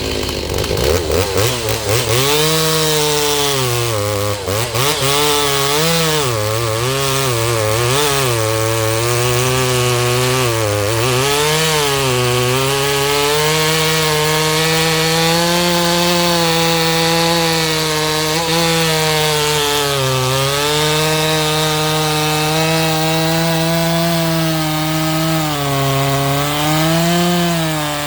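Stihl MS 390 two-stroke chainsaw, rebuilt with a Hipa kit and still breaking in, revving up about a second in and then cutting wood. Its pitch rises and dips repeatedly at first, then holds high with short dips where the chain bogs into the cut.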